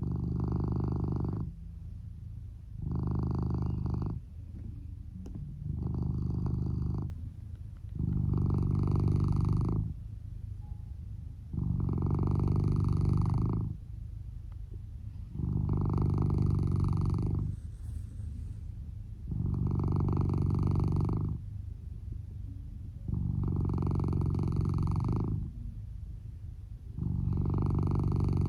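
A sleeping Norwegian Forest Cat snoring, one low snore on each breath about every three and a half to four seconds. The owner does not think the snoring is a sign of illness.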